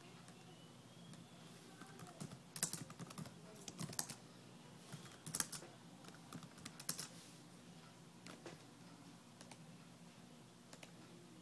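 Typing on a keyboard: quick runs of key clicks between about two and seven seconds in, then a few scattered single clicks, over a faint steady hum.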